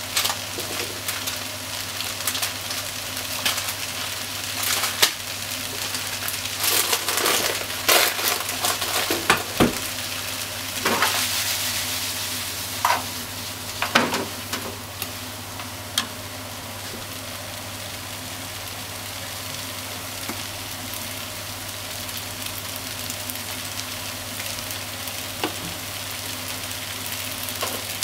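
Noodles, pork and onion sizzling in a hot frying pan as they are stir-fried with wooden chopsticks. The chopsticks knock and scrape against the pan a number of times in the first half, then the sizzle goes on steadily with fewer knocks.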